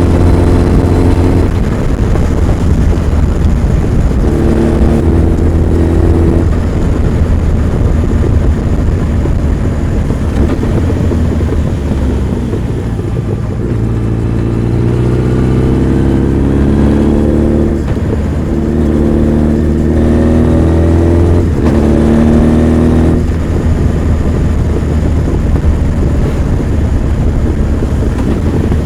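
Honda CB1300 Super Bol d'Or's inline-four engine and exhaust while riding, pulling through the gears. The pitch climbs in each gear and drops back at each shift, over a steady low drone.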